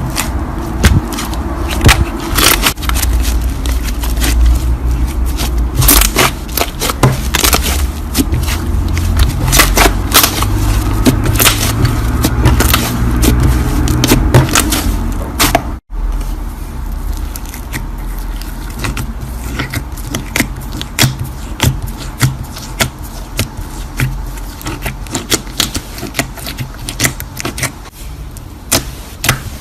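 Slime being squished and kneaded by hand, giving a dense run of sticky crackling pops and clicks over a low handling rumble. It breaks off for an instant about halfway through.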